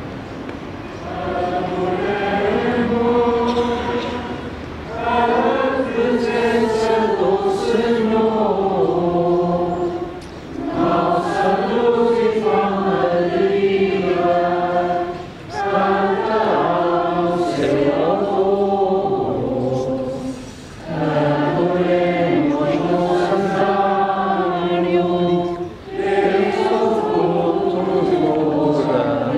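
A choir singing a slow, chant-like hymn in phrases of about five seconds, with short breaths between them.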